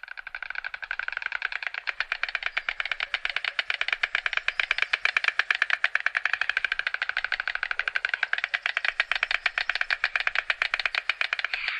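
White stork clattering its bill: a fast, continuous rattle of clacks that keeps going without a break.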